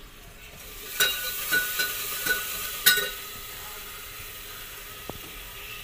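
Steady sizzling hiss from food cooking in a steel pot over a wood-fired clay stove. Steel utensils clink and scrape with short metallic rings between about one and three seconds in, with two sharper knocks.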